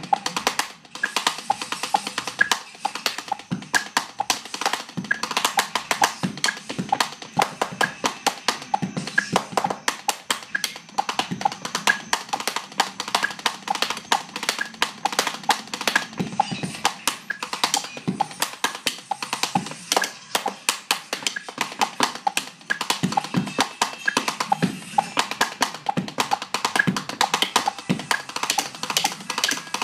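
Wooden drumsticks beating fast, rhythmic patterns on a tabletop: a dense run of many sharp knocking strikes a second, with no deep bass drum.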